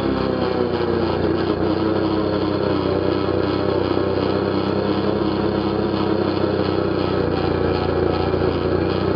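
ATV engine running at steady revs.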